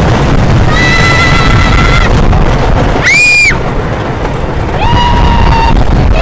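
Riders on an amusement-park ride screaming: several high-pitched cries, some rising and falling quickly, others held for about a second, over the steady rumble of the park and ride.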